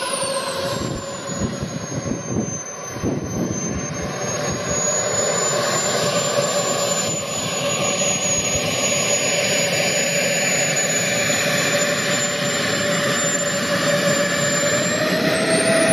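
Small gas-turbine engine of a radio-controlled model jet running at low power as the model taxis: a steady high whistle over a rushing hiss. The whistle drops in pitch right at the start and climbs again near the end as the engine spools up.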